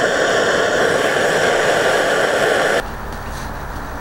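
Fire Maple FMS-300T canister gas stove burning under a pot of water, a loud steady hiss. Just under three seconds in the sound cuts off suddenly to a quieter low rumble.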